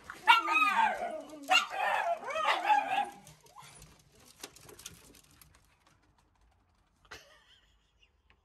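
Miniature schnauzers barking and yipping for about three seconds, then a few faint clicks and a single sharp knock about seven seconds in.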